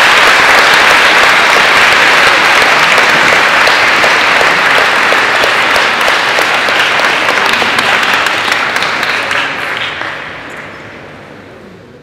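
Audience applauding: dense clapping that thins out and fades away over the last two seconds or so.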